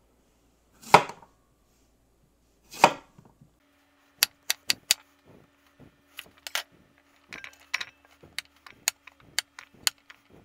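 Chef's knife cutting sweet potato on a bamboo cutting board: two louder strokes about two seconds apart, then a run of quicker, sharp knocks of the blade on the board as the potato is diced.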